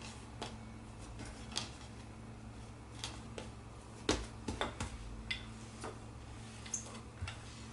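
Scattered light taps and clicks from hands shaping bread dough around a filling on a work surface, the loudest cluster about four seconds in, over a faint steady hum.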